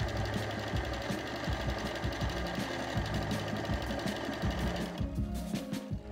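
Electric sewing machine running at a steady pace, stitching a seam in cotton fabric, with a fast, even clatter from the needle mechanism; it stops about five seconds in.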